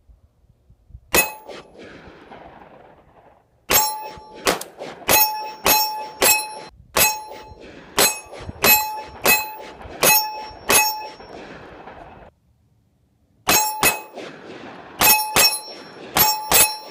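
9mm pistol bullets striking a 1/2-inch AR500 steel silhouette target, each hit a sharp clang that rings on with a steady metallic tone. There is a single hit about a second in, then a quick run of hits, a short pause, and another quick run near the end.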